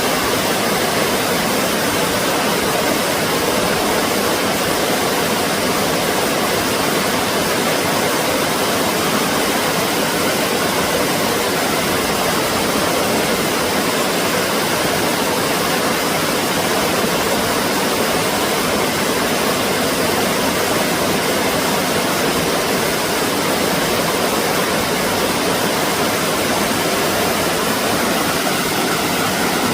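Steady rush of flowing water, even and unchanging throughout.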